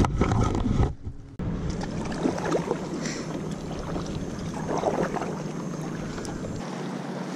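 Kayak paddle strokes dipping into lake water with soft splashes. A louder splash of water close by comes in the first second.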